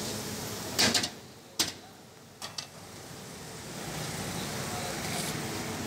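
A metal skimmer knocks sharply against a large steel karahi three times, then the broth in the pan boils with a steady, slowly rising bubbling.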